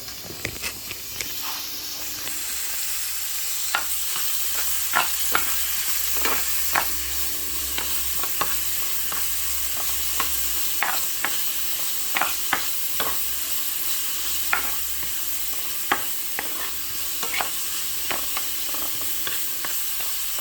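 Small pieces of dried salted fish sizzling as they fry in hot oil, growing louder about two seconds in, with frequent sharp clicks of a spatula stirring against the pan.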